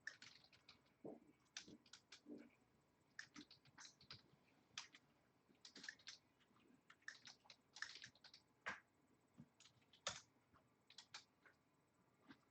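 Faint computer keyboard typing: irregular, quick keystrokes and clicks with short pauses between runs.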